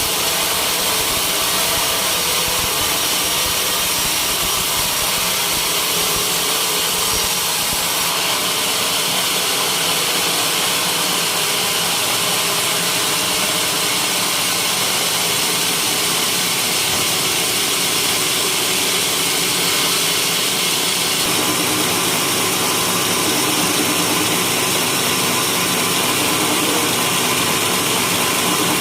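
Sawmill running and cutting teak wood: a steady, loud mix of motor and blade noise. Its tone changes about eight seconds in and again about two-thirds of the way through.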